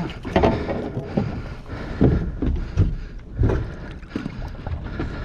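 Water sloshing and splashing against the side of a small boat in irregular slaps, as a hooked bluefin tuna is held at the hull.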